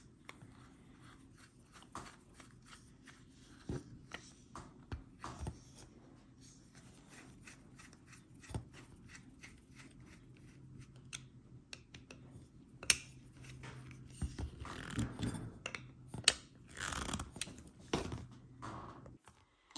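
Phillips screwdriver turning M5 machine screws into a metal end plate and crossbar: faint scattered clicks and scraping of metal on metal, with a sharper click about thirteen seconds in and more scraping and handling of the parts near the end.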